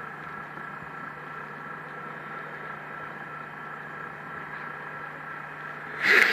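Massey Ferguson 590 Turbo tractor's diesel engine idling steadily, still cold from a start at −5 °C. A brief, loud rushing burst comes about six seconds in.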